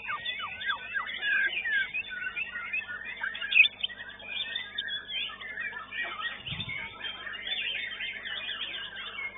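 White-rumped shamas (murai batu) singing over one another: a dense run of rapid, sliding whistles and chattering phrases. A short low thump sounds a little past halfway.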